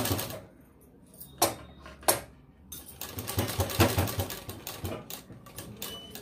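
Sewing machine stitching through layered fabric in short runs: a run stops just after the start, two sharp clicks follow, then another run of rapid stitching a few seconds in that tails off.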